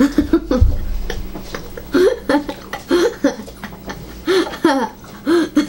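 People laughing at a table: short, repeated bursts of chuckling and giggling. There is a low thump about half a second in.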